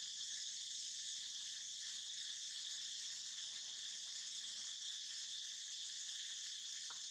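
A steady, high-pitched chorus of insects calling continuously in the background.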